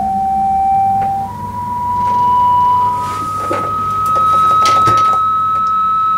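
A steady, pure electronic tone that steps up in pitch twice, about a second in and again about three seconds in, then holds on the highest note. A few short scratchy noises come partway through.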